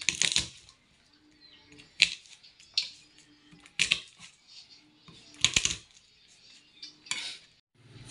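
Knife and garlic knocking on a chopping board: six sharp, irregular knocks one to two seconds apart, some of them doubled.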